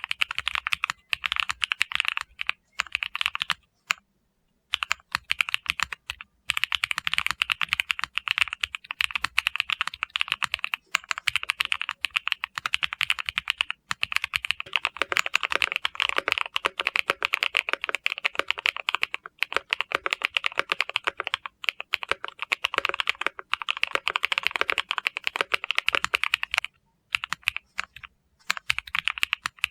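Fast continuous typing on a mechanical keyboard with stock MZ Studio Z1 switches: dense key clacks, with a brief pause about four seconds in and another near the end.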